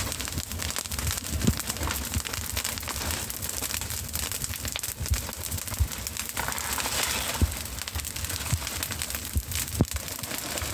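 Fire burning dry leaf litter and the base of banana plants, crackling densely with scattered louder pops.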